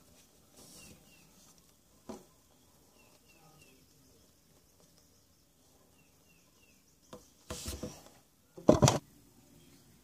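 Handling noise from hands on soft foam squishy toys: a single click about two seconds in, then loud rubbing and knocking near the end, the loudest about a second before the end. Faint short chirps, like a small bird's, repeat in the background.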